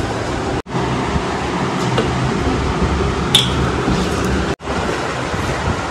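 Hands kneading soft wheat-and-maida dough in a steel bowl, with soft squishing and an occasional light click of the bowl, over a steady background hiss. The sound drops out briefly twice.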